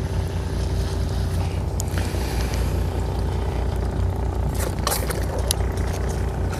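Fishing boat's engine running with a steady low drone and a faint steady hum above it, with a few brief clicks and rattles about two-thirds of the way through.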